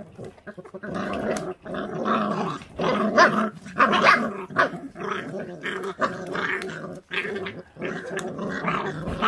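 Month-old feral-dog puppy growling over raw duck meat and bones in a rough, rumbling run with short breaks, loudest about three to four seconds in: food-guarding while eating.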